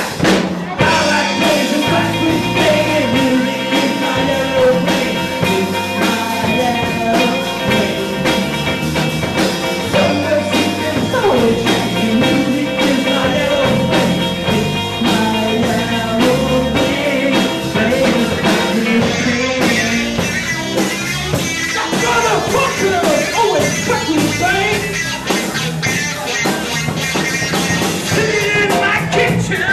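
Live rock band playing: electric guitar, bass guitar and drum kit, with a singer's voice over the band.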